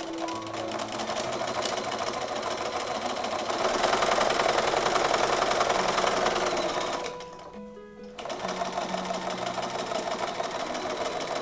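Bernina B215 electric sewing machine stitching through fabric in a fast, even run, stopping for about a second roughly two-thirds of the way through and then starting again.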